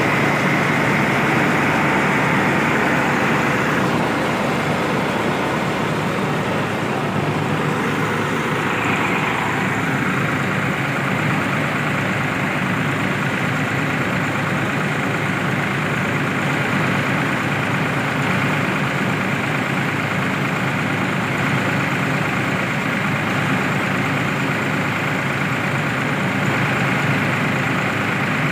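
Tractor-driven mini rice mill running steadily, powered by a New Holland 3630 diesel tractor: an even drone of the engine and the mill machinery.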